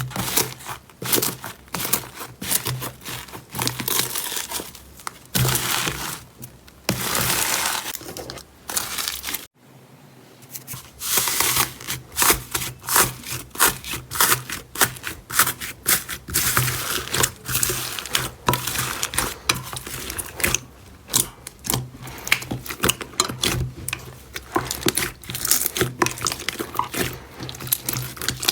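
Slime being squeezed and poked by hand, with a dense, irregular crackling and popping of small clicks. There is a brief break about nine and a half seconds in.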